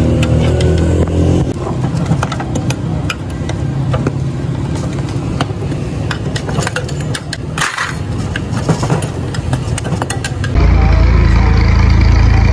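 Short metallic clinks and knocks of tools on a motorcycle's rear axle and wheel hardware as the wheel is taken apart for a puncture repair, over a steady engine hum. Near the end the hum jumps abruptly louder.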